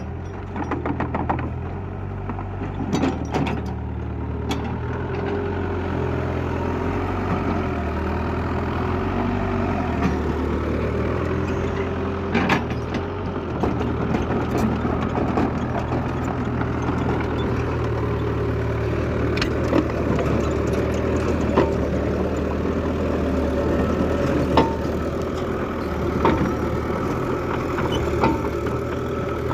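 Heavy diesel engine running steadily, with scattered clicks and rattles over it.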